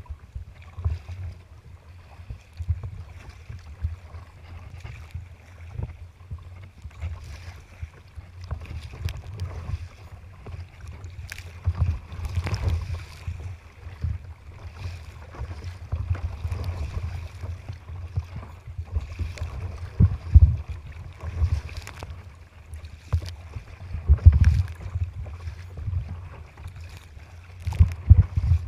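Choppy water splashing and slapping around a sea kayak as it is paddled, with louder splashes now and then, over a steady low rumble of wind buffeting the microphone.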